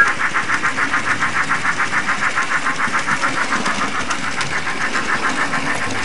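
Steam-locomotive chuffing from the built-in DC sound unit of an HO scale Thomas model train: rapid, even chuffs at a steady pace.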